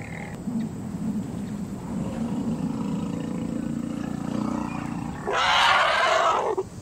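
Elephant vocalizing: a low rumble that grows over a few seconds, then a loud, harsh roar about five seconds in that lasts just over a second and cuts off.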